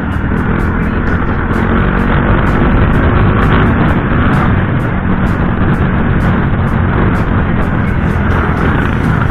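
Motorcycle engine running steadily while riding, heard from an on-board camera, with an even rush of wind and road noise over it.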